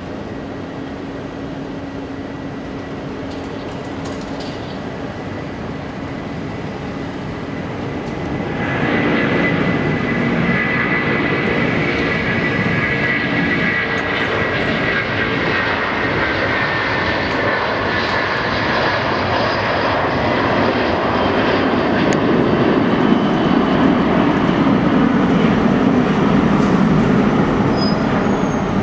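Airbus A330-200's twin turbofan engines on takeoff: a steady whine at low power, then about a third of the way in the engines spool up to takeoff thrust, with a high whine that slowly falls in pitch while the deeper engine noise grows louder through the takeoff roll and climb-out.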